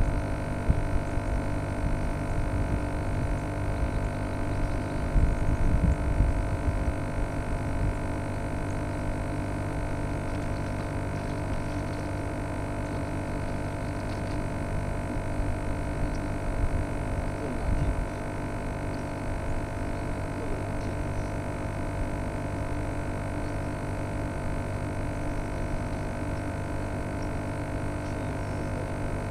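Steady hum made of several fixed tones. Low rumbling noise swells around five to seven seconds in and again briefly near eighteen seconds.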